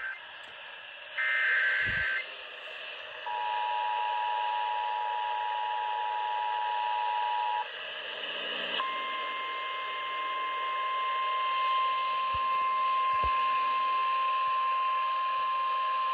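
Emergency Alert System tones received over radio with a steady hiss behind them. A short burst of SAME digital header data plays about a second in. The two-tone attention signal follows for about four seconds. After a short gap, a single steady warning tone sounds for about nine seconds.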